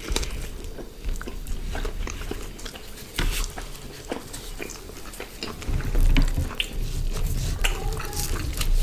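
Close-miked eating of grilled chicken and paratha: chewing and biting with many short, wet mouth clicks, and heavier low thuds from about halfway through.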